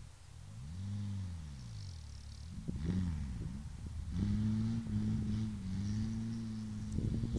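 Škoda rally car engine revving hard as it approaches, pitch climbing and dropping with each gear change, then held high and steady, growing louder. Sharp cracks come in near the end.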